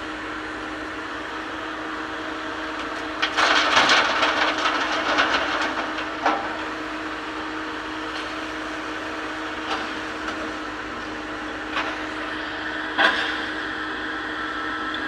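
Excavator engine running steadily while a bucketload of stones clatters into a steel dump-truck bed about three seconds in, lasting a few seconds, with a few single knocks of stone or bucket afterwards.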